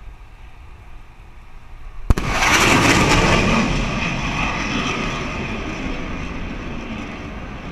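Sonic boom from an F/A-18 flying past faster than sound: one sharp crack about two seconds in, followed at once by the loud roar of the jet, slowly fading.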